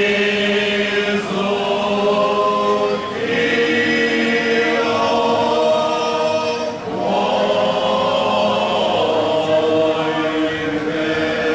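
Group of folk singers singing a traditional Slavonian song unaccompanied, in long held phrases with breaks for breath about three and seven seconds in.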